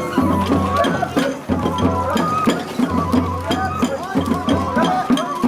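Japanese festival ohayashi music: a bamboo flute playing a wavering, sliding melody over drums and sharp percussive strikes.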